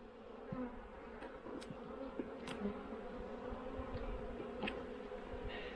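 Many honeybees buzzing steadily around an open hive, with a few faint knocks.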